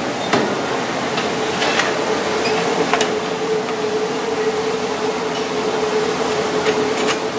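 Steady hum of kitchen equipment with one constant tone, with a few light metallic clinks from a baking tray and wire rack being handled.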